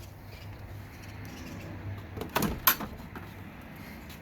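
Wooden beehive frames being handled during a hive inspection: two sharp knocks a little past halfway, over a low steady hum.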